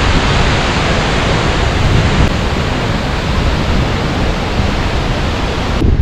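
A waterfall: a steady, even rush of falling water. Near the end it changes abruptly to a duller rush.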